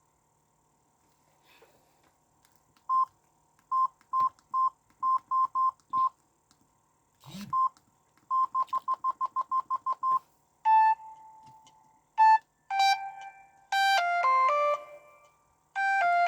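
Samsung SGH-E500 mobile phone beeping: short keypad beeps all at one pitch, first spaced out, then a quick run of about ten. From about two-thirds of the way in, a polyphonic ringtone melody starts to play.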